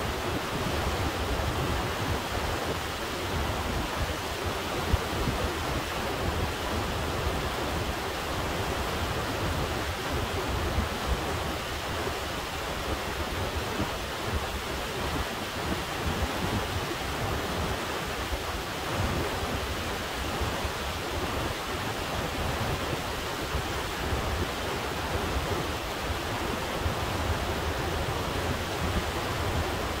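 Kennicott River, a fast glacier-fed river, rushing in one steady, unbroken wash of water noise with a low rumble underneath.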